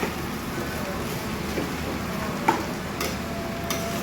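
Noodles and bean sprouts stir-frying in a pan: a steady sizzle, with a few sharp clacks of the spatula against the pan in the second half.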